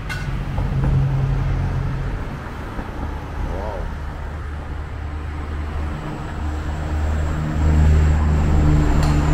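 Roadside traffic: a motor vehicle's engine running with a low, steady hum that grows louder about two-thirds of the way through.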